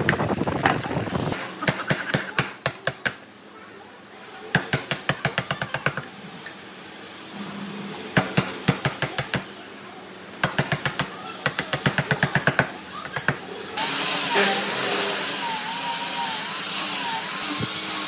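Quick runs of hammer blows knocking on wood, about seven or eight strikes a second, in four bursts with short pauses between. About fourteen seconds in, a steady hissing power tool with a warbling whine starts up and keeps running.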